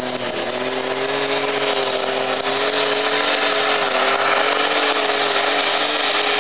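Competition pulling tractor's engine held at full throttle, a steady high-pitched drone over heavy noise, as it drags a weight sled down the dirt track.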